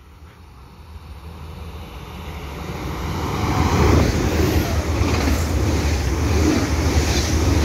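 ICE high-speed train passing through a station at speed. Its noise grows louder over the first four seconds or so as it approaches, then holds steady and loud as the coaches go by: wheels on the rails and rushing air.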